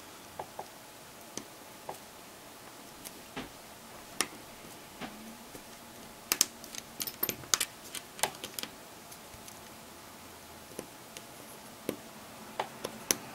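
Small, sharp, irregular clicks and taps of hands working on an opened smartphone, its flex cable connectors being pressed onto the circuit board; the clicks come thickest around the middle and again near the end.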